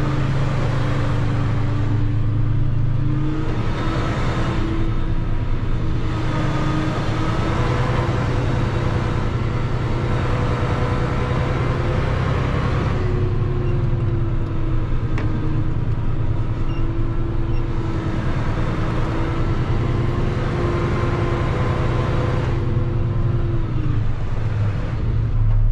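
Heavy truck's diesel engine running at low speed while the rig manoeuvres. Its pitch rises and falls slightly with the throttle.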